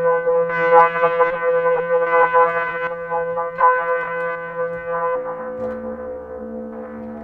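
Eurorack modular synthesizer playing a held, horn-like drone with many overtones, struck by pulsing accents about twice a second. About five seconds in the accents stop, lower tones take over and the sound fades.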